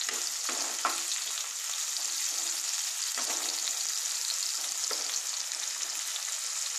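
Sliced onions and tomato sizzling steadily in mustard oil in a nonstick wok, stirred with a wooden spatula that scrapes through the pan a few times.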